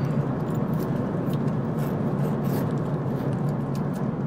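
Steady in-flight cabin noise of an Airbus A380 airliner, with light rustling and scraping as a small amenity kit is opened and handled.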